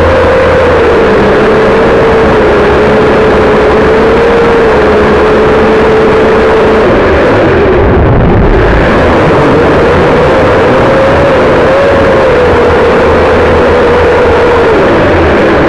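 Quadcopter drone's propellers buzzing with a steady whine, recorded from the drone itself. About seven seconds in, the whine breaks off for a couple of seconds under a rush of low noise, then comes back a little higher and drops in pitch near the end.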